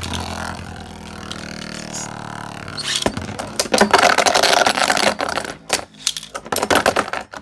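Beyblade Burst spinning tops in a plastic Beystadium: a whirring hum whose tones slowly fall, then from about three seconds in a loud rattling scrape as the tops clash and grind, with scattered clicks near the end.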